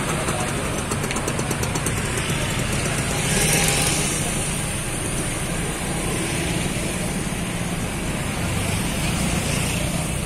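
Slow street traffic: car and motorcycle engines running, with a vehicle passing close and louder about three and a half seconds in.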